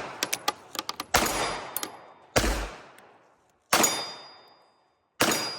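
Four gunshots fired at a steady pace, about a second and a half apart, at steel targets. A high ringing follows some of the shots, and a few small clicks come between the first two.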